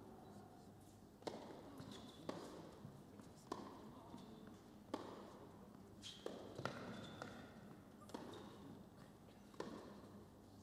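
A tennis ball bounced on an indoor hard court before a serve, then the serve and a short exchange of racket hits. These are single sharp knocks roughly a second apart, each echoing briefly in the hall.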